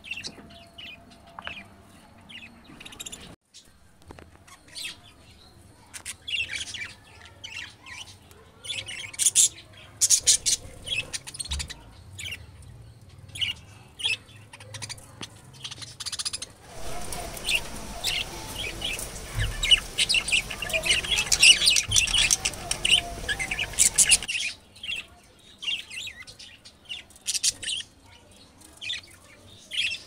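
Pet budgerigars chirping and chattering in quick, irregular chirps. The chirping grows busier and louder for several seconds in the middle, then drops back to scattered chirps.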